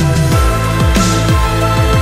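Electronic background music with a steady beat of deep bass notes that slide downward in pitch, about two a second.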